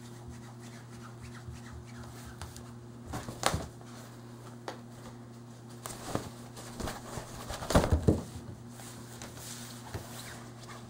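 A cat leaping at a swung fabric pop-up tunnel and landing on a wooden floor: rustling fabric, scratching claws and a few thumps, the loudest about three and a half seconds in and a cluster around eight seconds. A steady low hum lies underneath.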